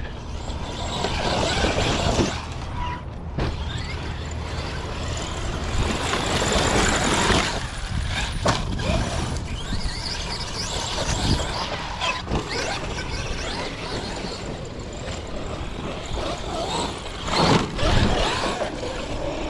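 Brushless electric motor of a Traxxas X-Maxx RC monster truck (Hobbywing Max5 800KV system) whining up and down in pitch as the throttle is worked, driving across sand, with a few sharp knocks along the way.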